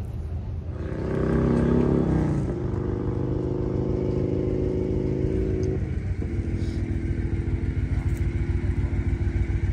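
A motorcycle engine running: it is louder and higher for the first couple of seconds, drops in pitch, then settles into an idle with a steady pulsing beat.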